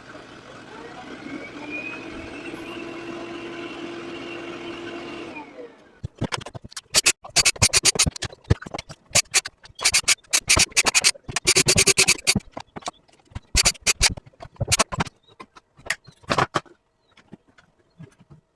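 A small electric motor runs steadily for about five seconds, with a faint whine that rises a little, then stops. Then come many sharp clicks and knocks in quick irregular clusters, like plastic parts of the robot vacuum being pried, unclipped and handled, thinning to a few faint ticks near the end.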